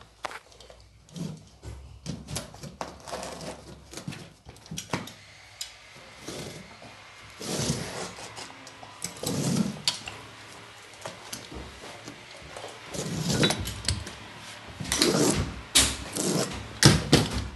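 Carpet being worked by hand onto a gripper strip at a doorway threshold: irregular rubbing and scraping of the carpet against the strip and floor, with scattered clicks and knocks, the louder strokes coming every couple of seconds in the second half.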